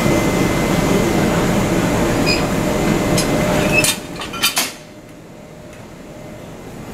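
A locomotive being uncoupled from a passenger carriage: steady loud mechanical train noise with a few clicks, which drops away sharply about four seconds in, followed by a few quick metallic clinks of the coupling gear.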